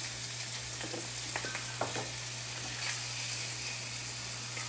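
Bone-in pork chops sizzling steadily on a hot ridged grill pan, with a few faint pops, over a low steady hum.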